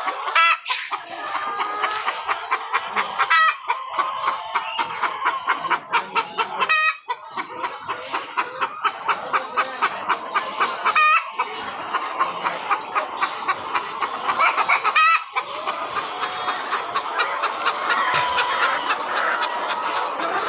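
A large flock of laying hens clucking continuously. About five louder, drawn-out calls stand out, roughly every three to four seconds.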